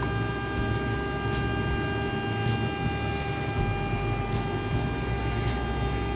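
A steady mechanical hum with a constant high whine, with faint short scrapes of a knife cutting into a fried whole chicken on a wooden cutting board every second or so.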